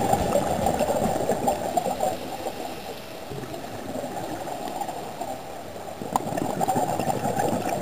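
Muffled underwater gurgling and bubbling noise, dense and irregular, with little above a low, dull band; it eases off a couple of seconds in and builds again near the end.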